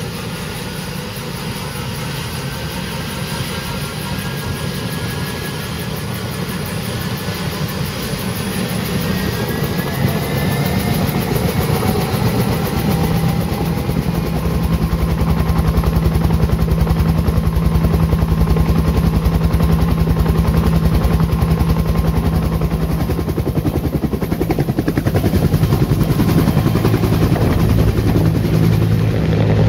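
Bell UH-1D Huey helicopter spooling up on its turbine engine. A whine rises in pitch over the first several seconds under the quick beat of the main rotor, and the whole sound grows louder until about halfway, then holds steady as it lifts off near the end.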